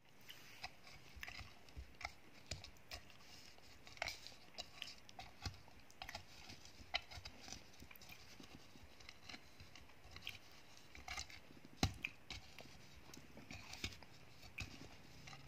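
Dry clay and slate pencil pieces crunching and clicking, in irregular sharp cracks about a second apart, the loudest about three-quarters of the way through.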